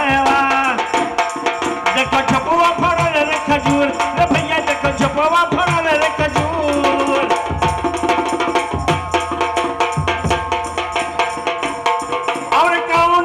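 Baithak gana music without words: a melody over fast hand-drum beats and jingling rattle-like percussion.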